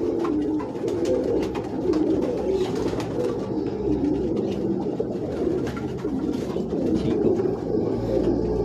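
Domestic pigeons cooing steadily, a continuous low, wavering murmur, with a few light handling clicks.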